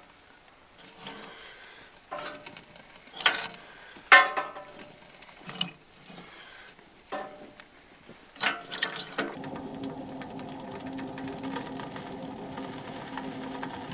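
Pieces of split firewood knocking against the metal of a small wood-burning tent stove as kindling is loaded onto a freshly lit fire, in scattered knocks. About nine seconds in, a steady low hum sets in.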